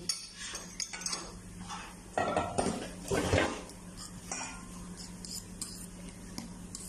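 Metal spoon clinking and scraping against a plate and a stainless steel mixing bowl while stirring steamed string beans into beaten egg and vegetables. A few louder scraping strokes come about two to three seconds in, then softer taps.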